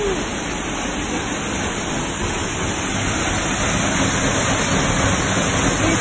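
Harvested rainwater pouring down into a recharge well under a metal grate: a steady rushing splash of falling water, recharging the groundwater.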